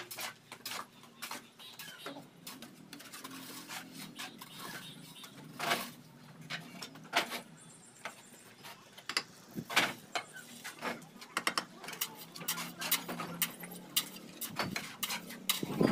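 Masonry work: steel trowels scraping and tapping wet mortar, and bricks being set down and knocked into place on wooden plank formwork. The result is an irregular run of sharp clicks and knocks that comes faster in the second half, with the loudest strikes about six and ten seconds in.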